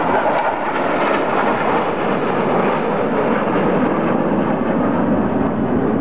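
Loud, steady jet roar of a formation of military fighter jets flying low overhead, the roar deepening in pitch as they pass.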